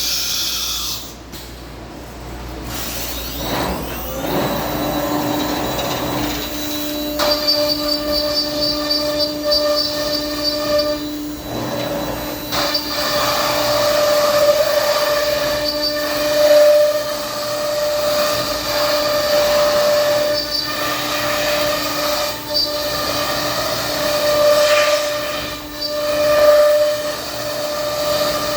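Thermwood CS-45 CNC router running. Its spindle spins up with a rising whine about four seconds in, then holds a steady high whine over the noise of the machine working.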